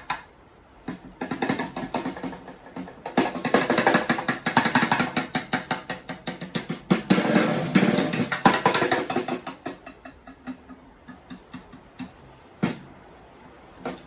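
Raindrops hitting a hard surface as rapid, irregular taps. The taps are scattered at first, become a dense, loud shower for several seconds in the middle, then thin out again to separate drops, with one sharper knock near the end.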